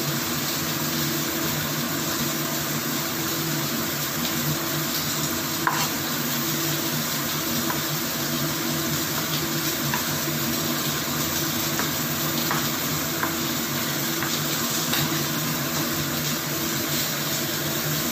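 Kitchen knife cutting tomatoes on a plastic cutting board: a few scattered soft taps of the blade on the board, the sharpest about six seconds in. Under them runs a steady hiss with a low hum.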